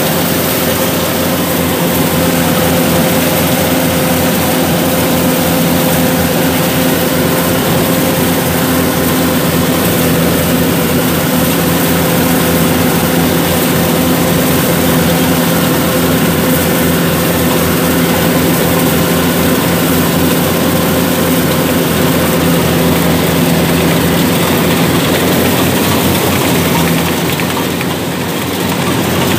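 Yanmar 850 combine harvester running steadily under load while it cuts and threshes rice, its engine and machinery making a continuous hum, heard close from the operator's seat. The level dips slightly for a moment near the end.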